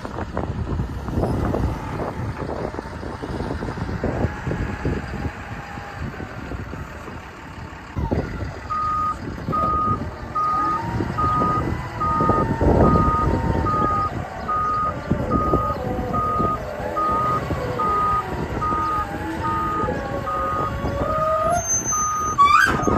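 Hyundai HL955 wheel loader running and working, with its reverse alarm beeping about twice a second from a little under halfway in until near the end. A wavering whine rises and falls over the engine as the loader moves and lifts its bucket.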